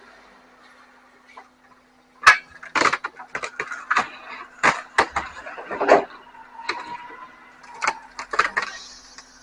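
Waste being handled by a grapple truck's claw: a run of irregular loud cracks and crashes, like wood and debris breaking and falling, starting about two seconds in and stopping near the end. Under it runs a steady low hum from the truck.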